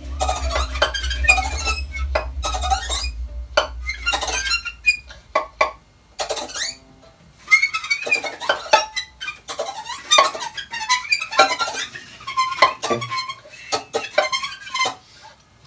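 Free-improvised experimental music on acoustic instruments: scattered irregular clicks, taps and short squeaky pitch glides. A low rumble underneath stops about six seconds in.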